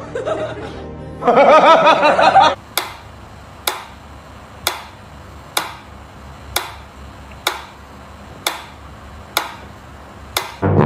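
Mechanical pendulum metronome ticking steadily, about one sharp tick a second, nine ticks in all, after a wavering vocal cry in the first couple of seconds.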